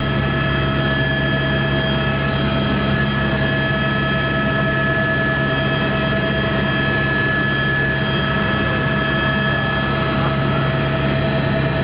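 Helicopter running steadily: a continuous loud engine and rotor noise with a steady high whine over a low hum.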